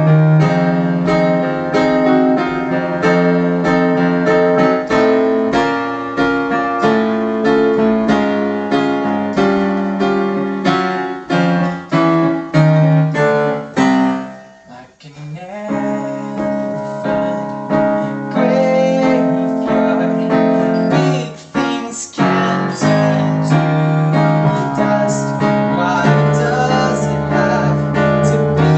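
Digital piano playing chords under a moving melody, thinning to a brief near-stop about halfway through before picking back up.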